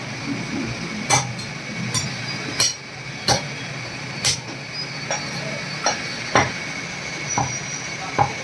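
Heavy butcher's cleaver chopping mutton and bone on a thick wooden chopping block: about ten sharp chops at irregular intervals, over a steady background hum.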